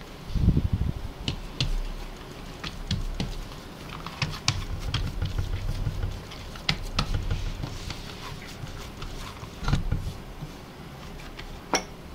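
Hands working a paper-thin sheet of oiled dough on a work surface: soft thumps and slaps with scattered light clicks and taps, and a sharper click near the end.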